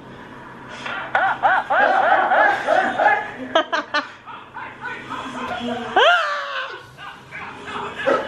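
A person laughing in a run of quick high-pitched bursts, with a few sharp clicks in the middle and one rising squeal about six seconds in.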